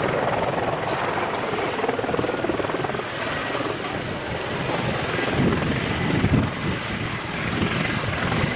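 Mi-35 Hind attack helicopter flying a display pass, its main rotor beating rapidly over the steady whine of its turbine engines, swelling briefly about six seconds in.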